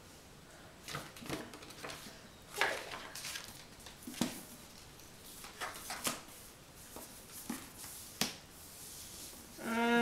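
Hands handling a hardcover book: scattered, irregular soft rustles and taps as the pages are opened and the cover is turned over and felt.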